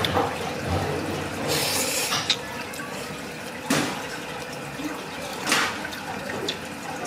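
A person slurping ramen noodles, three short wet slurps spread across a few seconds.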